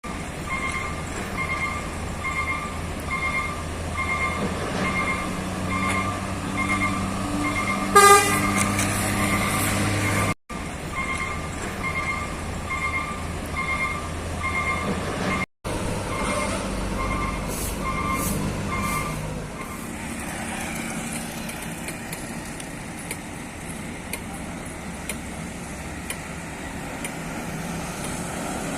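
Heavy diesel truck running with its reversing alarm beeping steadily, about two beeps a second, and a short loud horn toot about eight seconds in. The beeping stops near twenty seconds, leaving a lower engine rumble.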